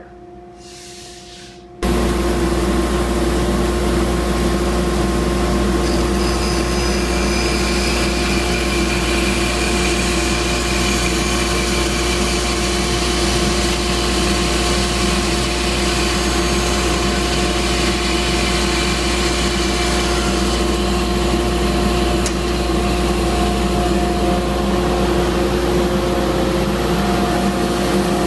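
Grizzly bandsaw running, its blade cutting through a wooden shotgun stock to take off the butt end along a marked line. The steady machine noise starts suddenly about two seconds in, with a higher cutting sound from about six to twenty seconds.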